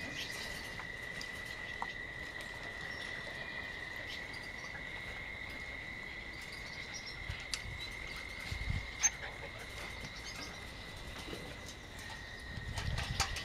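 A steady high-pitched whine holds one pitch throughout, with a few faint clicks and low thuds about nine seconds in and again near the end.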